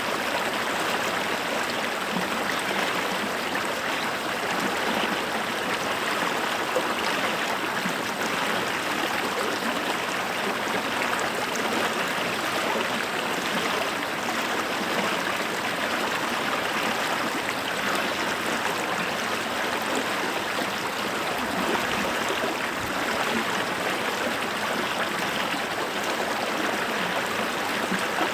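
Running water, a steady rush with a fine trickling texture, as of a stream flowing over rocks.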